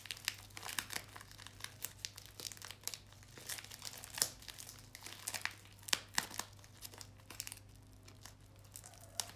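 Parcel packaging being torn open by hand, with irregular crinkling and crackling throughout.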